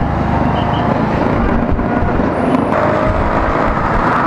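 Bajaj Avenger 220 motorcycle's single-cylinder engine running at low speed while filtering through slow city traffic, a steady low rumble heard through an action camera's microphone, mixed with surrounding traffic noise.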